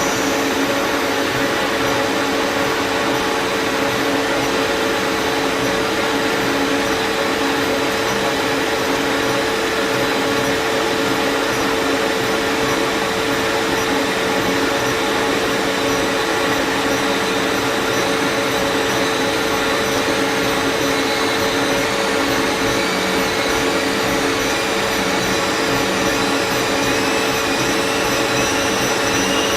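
Lathe running steadily: a constant machine hum with a strong fixed tone. About two-thirds of the way through, a faint wavering high whine joins in and slowly climbs.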